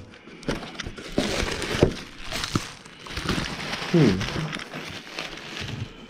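Packaging being handled, rustling and crinkling, with scattered clicks. A brief voice-like sound with falling pitch comes about four seconds in.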